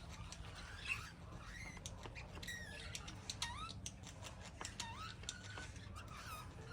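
Parrots chattering softly: a string of short squeaky chirps that rise and fall in pitch, several a second, with small clicks between them.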